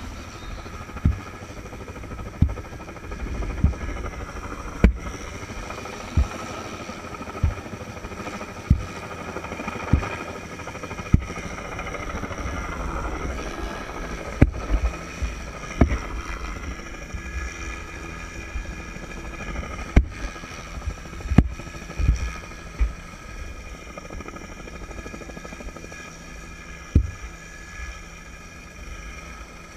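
Helicopter turbine whine and rotor noise, heard from the end of a short-haul line beneath the aircraft, with wind buffeting the microphone in low thumps about every second and a quarter.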